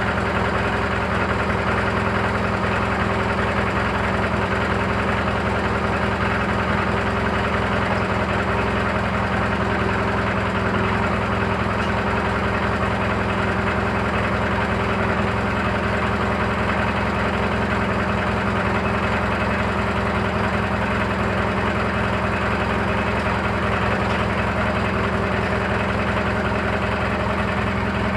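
Briggs & Stratton 18 hp opposed-twin engine running steadily, with a weird knocking chatter that the owner cannot yet place.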